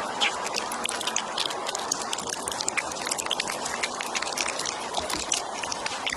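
Stray cats eating, with many quick irregular crunching clicks over a steady background hiss.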